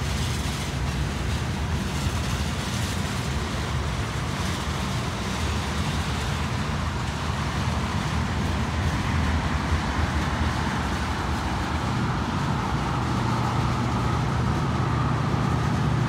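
Steady low engine rumble over a wash of traffic-like noise, with no sudden sounds; the low hum grows stronger about twelve seconds in.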